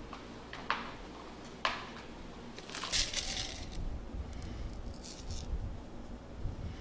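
Small handling sounds from gloved hands decorating a cake: two light clicks about a second apart, then a crinkly rustle about three seconds in and softer rustling after it.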